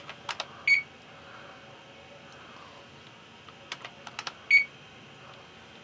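Keyboard keys clicking in two quick groups of a few presses, each group followed by a short high beep from the IBM PS/2 Model 30's speaker: answers being keyed in to the diagnostic's 'Is the screen correct?' prompts.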